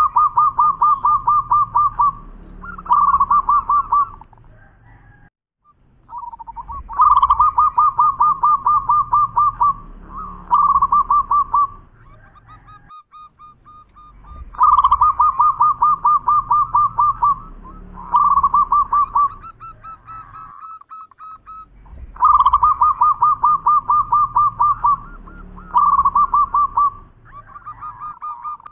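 Zebra dove (perkutut) singing its cooing song: a fast run of repeated coo notes, a brief break, then a shorter run. The phrase comes about every seven and a half seconds, four times.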